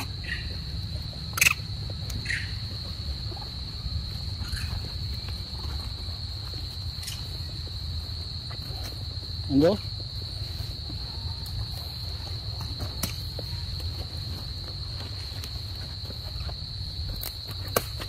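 A steady, high-pitched drone of insects, one unbroken tone, with low rumbling beneath. A short spoken word sounds about ten seconds in, and sharp clicks come about a second and a half in and near the end.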